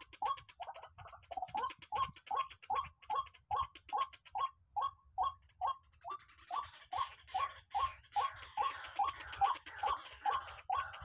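White-breasted waterhen calling: a monotonous series of short, rising croaking notes, about three a second, the 'ruak-ruak' call the bird is locally named for. A hissy background joins in from about halfway through.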